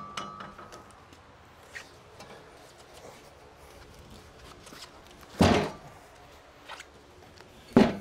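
Two heavy thuds about two seconds apart, the first longer and the second short and sharp: a sweet gum log being rolled over and dropped onto the steel bed of a Wood-Mizer LT15 sawmill.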